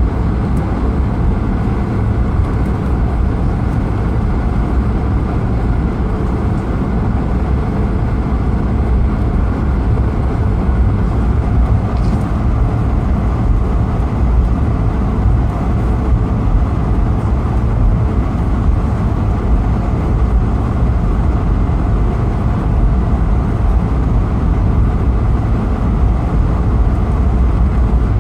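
Steady rumble of a Swiss Airbus A220-300's Pratt & Whitney PW1500G geared turbofan engines and airflow, heard from inside the passenger cabin, with the low end strongest and no breaks or changes.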